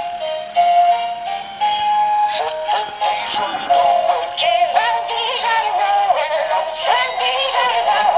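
Gemmy animatronic snowman couple singing a Christmas song through their small built-in speaker, a thin, bass-less electronic melody with a synthetic singing voice.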